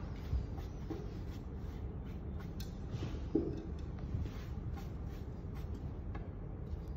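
Faint rubbing and scratching of hands handling a ceramic plate and small objects on a cloth-covered plinth, with two soft knocks about a second and three and a half seconds in, over a steady low room hum.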